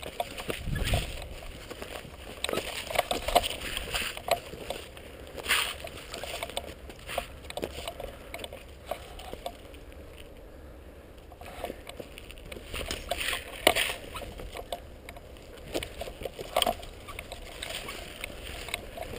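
Footsteps crunching over loose limestone rubble and gravel, with dry scrub brushing against clothing and gear. The crunches come irregularly, with a short pause about halfway through.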